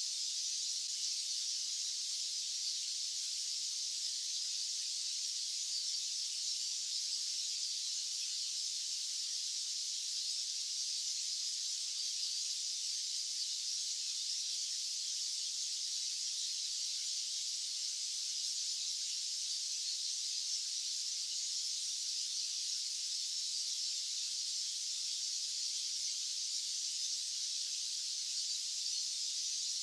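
Steady, unchanging high-pitched hiss of a white-noise track, thin and airy with no low rumble.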